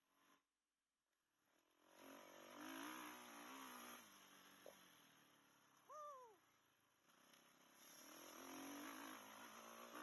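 An engine running and revving in two spells, its pitch wavering, with a steady high hiss over everything. The sound drops out almost completely for about a second near the start, and a short falling squeak comes midway.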